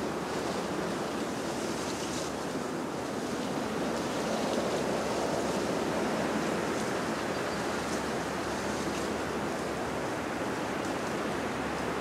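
Rushing water: a steady, even wash of noise that swells a little midway.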